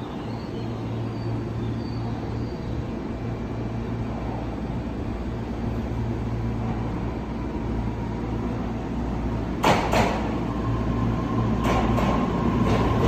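Tobu Noda Line electric train standing at a station, its equipment humming steadily. About ten seconds in come two sharp knocks, and a steady whine sets in, with a few fainter knocks after.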